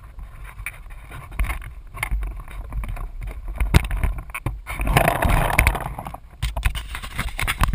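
Wind buffeting an action camera's microphone with a low rumble, swelling about five seconds in. Scattered knocks and rustles come from the camera being handled and picked up near the end.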